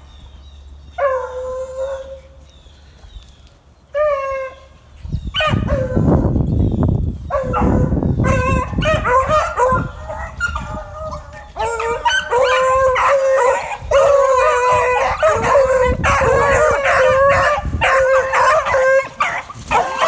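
Pack of beagles baying hard on a hot rabbit track. A few single bawls come first, then from about eight seconds in many hounds open up at once in a continuous, loud chorus. A low rumble runs under it for a few seconds before the chorus builds.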